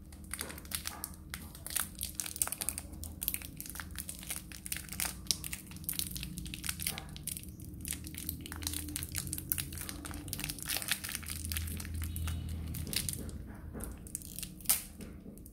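A plastic-foil wrapper on a black sesame candy bar crinkling as it is twisted, torn open and peeled back by hand: a dense, irregular run of crackles, with one sharper crack near the end.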